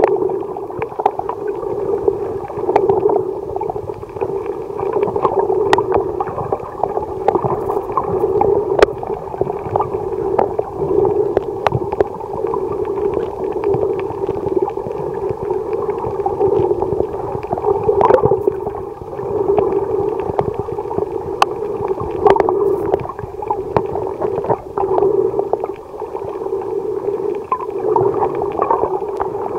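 Underwater sound as picked up by a camera below the surface: a steady, muffled drone with scattered sharp clicks and crackles.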